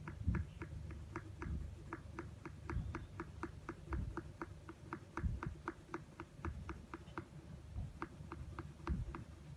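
Blue colour pencil scratching on paper in quick, even back-and-forth strokes, about four a second, with a short break about seven seconds in. Dull low bumps from the hand and ruler shifting on the paper sound underneath.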